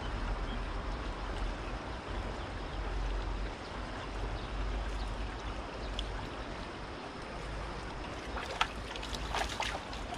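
Steady rush of flowing river water over a low rumble. Near the end, a few short splashes as a small hooked fish thrashes at the surface while being drawn in to the bank.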